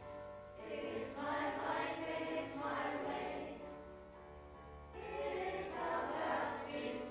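A choir of children and teenagers singing a song together in sung phrases, easing off briefly a little past the middle before the next phrase comes in.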